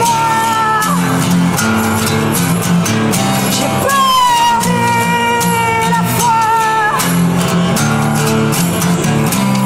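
Acoustic guitar strummed steadily in a dark-folk song, with a woman's voice holding long wordless notes over it that glide down and waver, breaking off for a few seconds about a second in.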